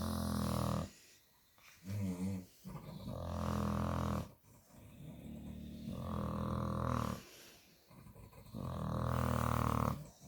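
Staffordshire bull terrier snoring in its sleep: long, deep snores, one every two seconds or so, with short quiet gaps between the breaths.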